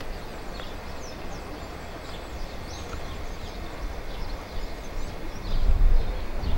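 Outdoor ambience: small birds chirping again and again over a steady background noise, with a low rumble that swells louder near the end.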